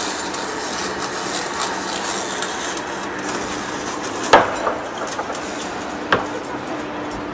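Large metal lathe turning a heavy steel workpiece: a steady hiss of machining with a faint hum, broken by two sharp metallic clanks, the louder one about four seconds in and another about two seconds later.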